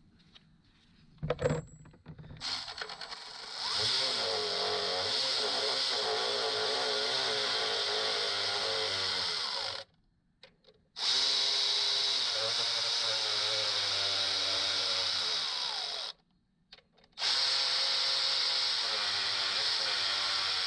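A few short metallic clicks, then a cordless power drill with a socket running engine front-cover bolts in. It makes three long runs of several seconds each, with a motor whine that wavers in pitch under load, and each run stops abruptly.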